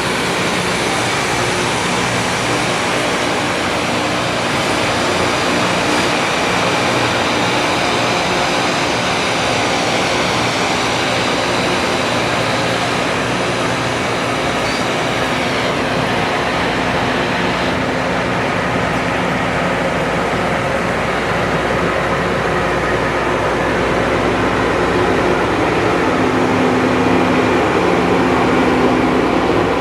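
Loram rail grinder working the rail: a loud, steady mix of diesel engine drone and the hiss of its grinding stones on the rail, growing a little louder near the end.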